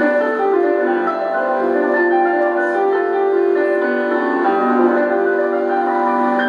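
Grand piano played solo: a slow melody of long, overlapping held notes over sustained chords, sounding thin with almost no bass.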